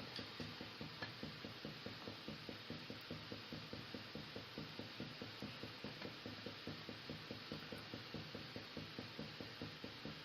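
Faint, steady mechanical ticking in an even rhythm, about three to four ticks a second.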